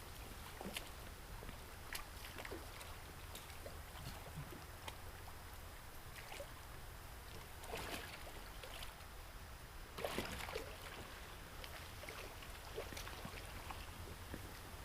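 Water sounds around a kayak on a river: scattered small splashes, drips and knocks against the hull over a steady low rumble, with two louder splashes about eight and ten seconds in.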